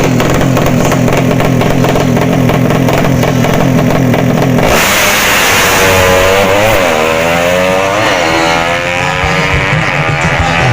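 Drag-racing underbone motorcycles: a steady low engine drone, then about five seconds in a sudden switch to engines revving hard, their pitch sweeping up and down repeatedly as they accelerate.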